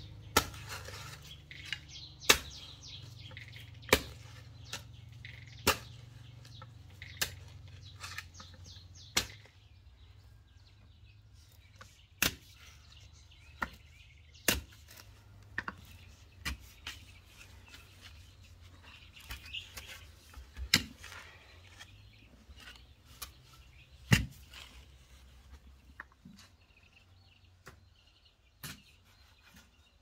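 A long-handled digging tool with a metal blade strikes hard soil, digging a hole. There is a sharp chop every one to two seconds.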